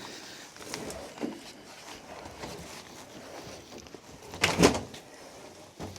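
Handling noises as a portable generator is uncovered and dragged out: scattered light knocks and rustles, then one loud clunk and rattle about four and a half seconds in, and a smaller knock near the end.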